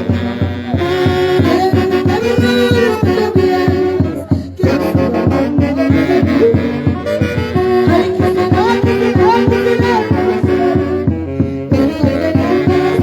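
Live band music from a Huancayo orchestra: a horn melody of held notes over a steady beat, with a brief break about four seconds in.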